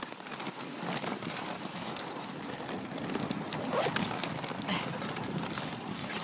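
Dog sled running over packed snow behind a team of huskies: a steady scraping rustle of the runners on the snow, with small crunches and clicks.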